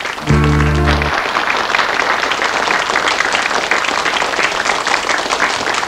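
Studio audience applauding steadily. A short held musical chord sounds about half a second in and cuts off sharply just after a second.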